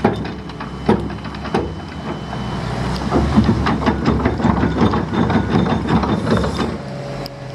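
Heavy construction machinery running, a steady low engine rumble with a rapid scatter of knocks and clicks that is busiest in the middle.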